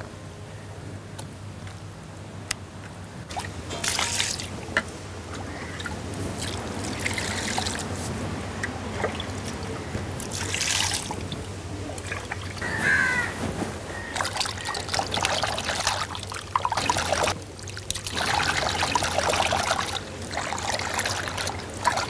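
Water sloshing and splashing in a steel bowl as hands rub and wash pieces of raw beef liver, coming in irregular bursts that grow busier in the second half. A crow caws once about midway.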